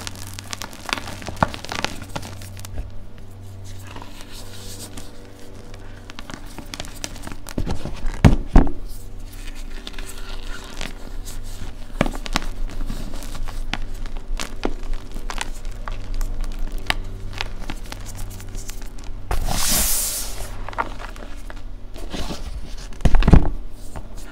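Hands crushing and squeezing lumps of gym chalk in a bowl of powder: dry crunching and crumbling with many small crackles. Louder crunches come about a third of the way in and near the end, with a brief hiss shortly before the last.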